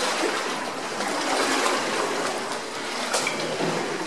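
Water splashing and trickling around a hand-rowed boat, its oars dipping into the water as it moves along.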